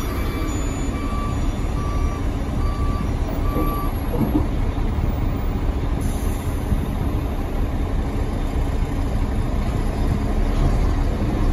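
Wheel loader's diesel engine running with a steady low rumble, heard from inside its cab. A reversing alarm beeps at an even pace, about once every 0.8 seconds, and stops about four seconds in.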